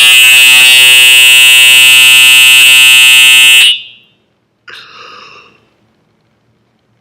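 Building fire alarm going off at close range: one steady, very loud tone that overloads the recording, then cuts off suddenly about three and a half seconds in.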